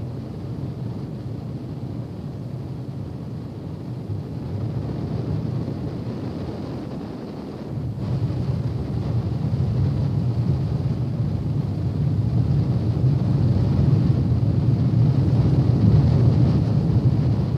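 Natural gas burning at a row of flare pipes: a steady low rumble that grows louder about eight seconds in.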